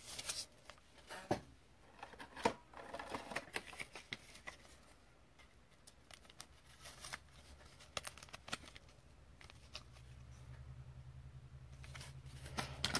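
Faint handling of trading cards: light clicks, taps and rustles as cards in rigid plastic holders and a foil pack are picked up and shuffled on a table.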